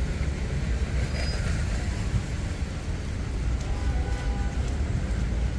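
Steady low rumble of city street traffic, with a faint higher tone briefly about four seconds in.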